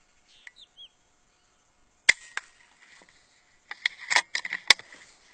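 PCP air rifle shot: a sharp pop about two seconds in, followed at once by a second knock, then a run of clicks and rustling with one more sharp click near the end. Faint bird chirps near the start.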